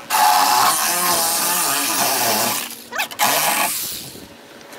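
DeWalt corded reciprocating saw (Sawzall) cutting through the rusty sheet steel of a 1960 VW Beetle's front apron. It runs hard for about two and a half seconds, breaks off briefly, runs again for about half a second, then stops.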